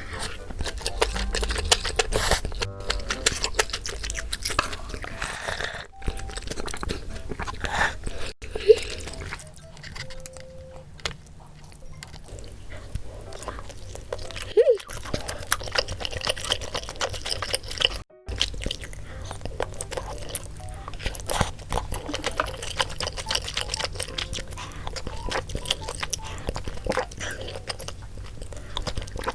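Close-up eating sounds, crunching and chewing of food, over light background music.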